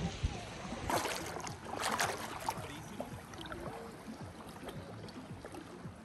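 Seawater sloshing and splashing, with two louder splashes about one and two seconds in over a steady wash of water noise.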